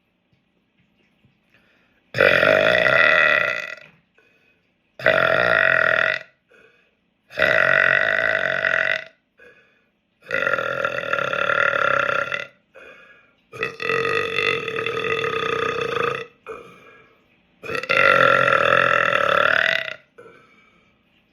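A man belching on purpose: six long, loud, pitched burps in a row, each lasting about one to two and a half seconds, with short, quieter sounds in the gaps between them.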